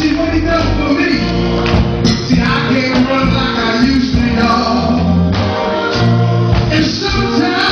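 Gospel group singing with instrumental backing: sung voices over a steady bass line and drum beat.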